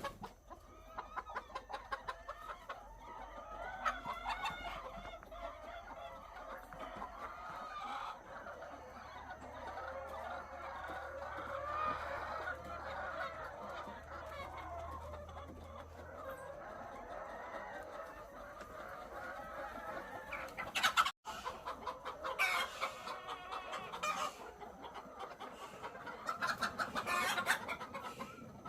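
A large flock of egg-laying hens clucking, many calls overlapping in a continuous din, with a few louder calls standing out in the last third.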